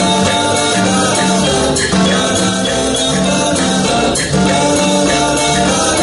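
Live band playing a calypso: electric bass, drum kit, congas and guitar in a steady groove.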